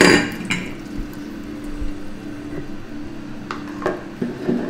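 A metal pan lid clanks and rings as it is set down at the start. Then a stainless pan of green peas simmers gently in stock, with a couple of light spoon clicks near the end.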